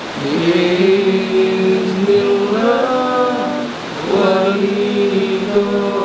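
A group of men chanting together in unison, in long drawn-out notes that slide from one pitch to the next, with a short break about four seconds in.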